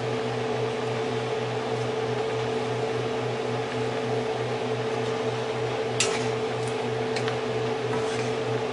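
Steady electric fan hum over the stove, with a sharp click about six seconds in and two fainter ticks after it.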